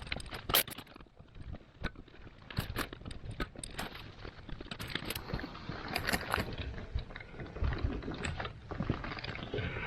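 Scattered clicks, knocks and scraping as an old electrical outlet and its stiff wires are handled and worked loose from a wall box, with one sharp click about half a second in.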